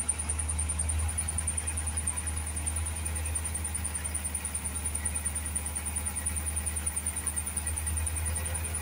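Diesel engine of an Agrimac 926 wheel loader running steadily while its bucket is worked at the gravel pile. A high, rapidly pulsing whine sits above it.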